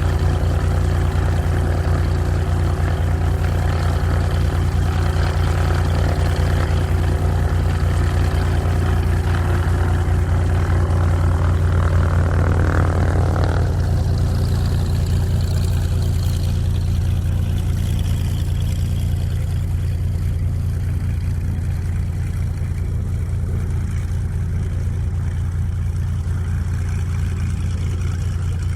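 Propeller airplane engine running steadily with a low drone, growing slightly quieter over the last several seconds.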